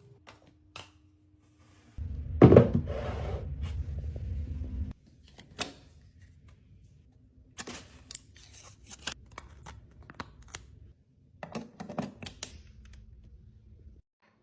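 Packaging and containers being handled in short cut-together clips. The loudest part is a crinkling, tearing rustle about two and a half seconds in, followed by scattered clicks and taps.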